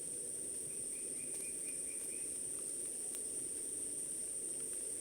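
Distant town traffic, a steady low roar rising up a forested slope, under a continuous high-pitched insect drone. About a second in comes a quick run of about seven short high notes.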